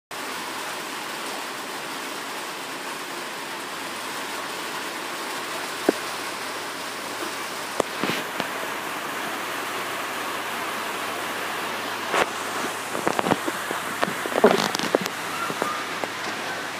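A steady, even hiss, with a few sharp clicks and knocks from the phone being handled, most of them in the second half.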